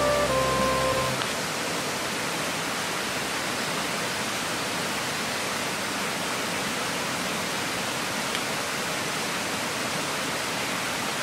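Steady, even hiss of a portable gas stove burner running under a pan of water. A few held music notes fade out about a second in.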